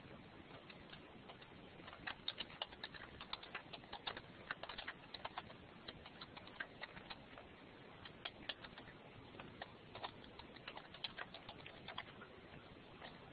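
Faint typing on a computer keyboard: irregular runs of quick keystrokes, starting about two seconds in and thinning out near the end.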